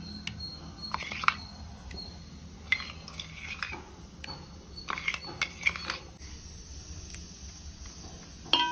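A spoon scraping and clinking against a stainless steel mixer-grinder jar as thick carrot paste is scooped out: scattered short knocks and scrapes, with a louder clink near the end.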